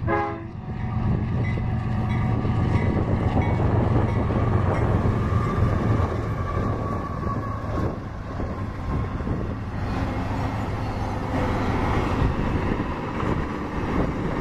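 A CSX diesel freight train passing close by: the locomotive horn ends about half a second in, the diesel locomotives' low engine drone goes by over the next several seconds, then double-stack intermodal container cars roll past with a steady wheel-and-rail rumble.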